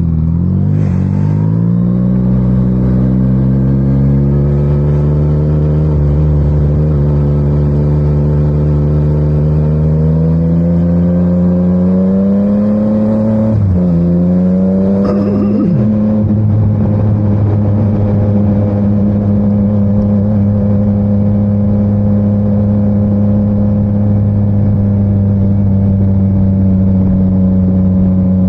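Motorcycle engine accelerating, its pitch rising steadily until a gear change with a quick dip about 14 seconds in, then climbing again and holding a steady note at cruising speed.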